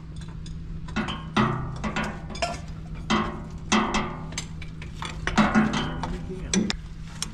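Large steel wrenches clanking and clinking as they are handled against each other and the fittings, a string of sharp metal knocks, some ringing briefly, over a steady low hum.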